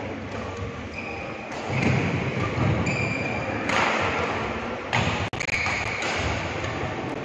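Badminton play on an indoor court: several short high squeaks of court shoes on the mat and thudding footwork, with a sharp racket-on-shuttlecock hit a little past five seconds. Spectators' voices murmur underneath.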